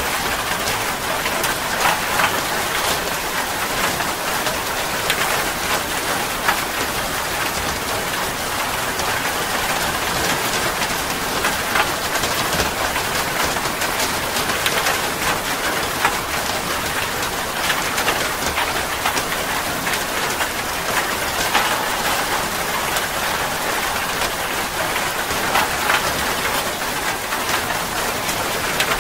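Steady heavy rain falling, an even hiss with many close drops ticking sharply here and there.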